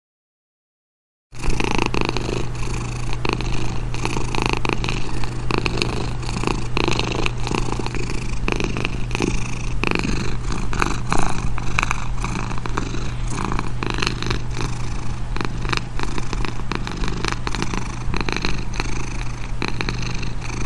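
A cat purring loudly and steadily, starting about a second in.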